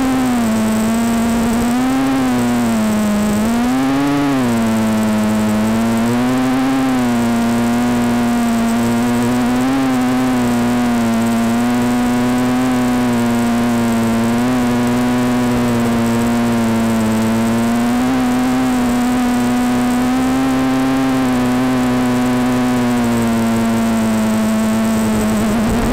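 Micro quadcopter's Turnigy 1811 2900kv brushless outrunner motors and propellers whining, picked up by the onboard camera. The pitch wavers up and down with the throttle, with a few larger swells in the first few seconds, then holds fairly steady.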